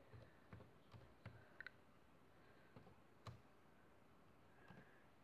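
Faint, scattered clicks of laptop keys being pressed while a password is typed in, about half a dozen irregular taps against near silence.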